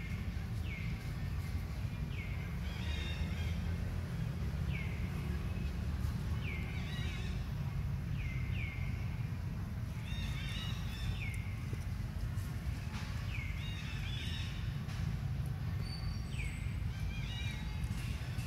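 Long-tailed macaque giving short, high squealing cries, each sliding down in pitch, repeated every second or two, sometimes two in quick succession. A steady low rumble runs underneath.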